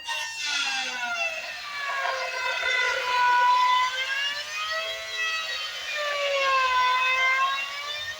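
Handheld electric planer running under load. Its motor whine dips in pitch and climbs back twice as the cutter bites into the timber, then bogs and recovers again.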